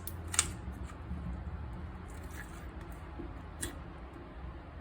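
Thick slime being squished and worked by hand, with a couple of sharp little clicks or pops.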